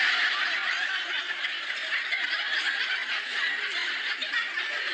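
Studio audience laughing: one long wave of laughter that peaks at the start and eases slightly.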